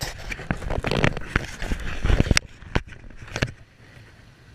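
Handling noise on a body-worn action camera: a rapid, irregular run of loud clicks, knocks and scrapes as the angler's arm and rod hand move against it. The noise stops about three and a half seconds in.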